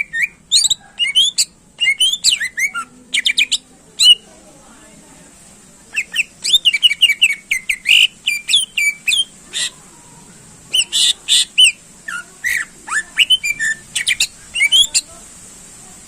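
Cucak ijo (greater green leafbird) singing a fast run of sharp, sweeping whistled notes, in three bursts broken by short pauses about four and ten seconds in.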